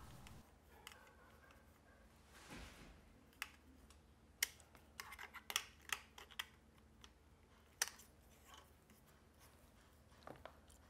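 Faint light clicks and scrapes of a small hex key working the grub screw under a Xiaomi M365 electric scooter's throttle as it is tightened, with most of the clicks in the middle stretch.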